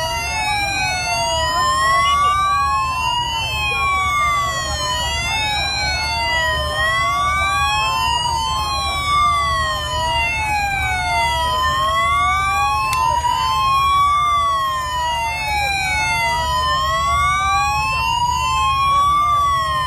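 Police motorcade sirens wailing: two sirens out of step, each rising and falling slowly about every three and a half seconds, over a low rumble of engines and crowd.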